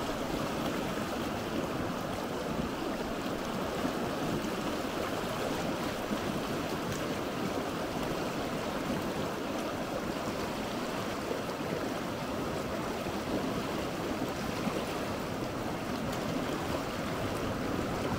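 River current flowing, a steady rush of moving water.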